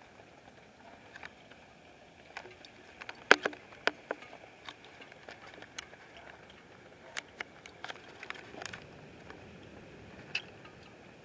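Scattered raindrops tapping near the microphone: irregular sharp ticks, the loudest a little over three seconds in, over a faint steady hiss.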